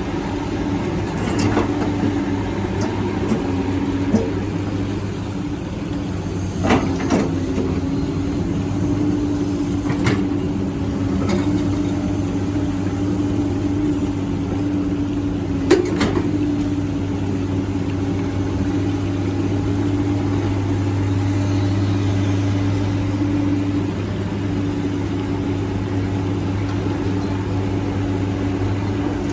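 Hydraulic excavator's diesel engine running steadily under work, with a held hydraulic tone over it and a few short clanks from the bucket and linkage, the sharpest about two-thirds of the way through.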